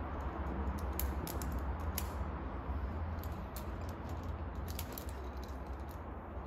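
Outdoor ambience: a steady low rumble with scattered light clicks and ticks throughout.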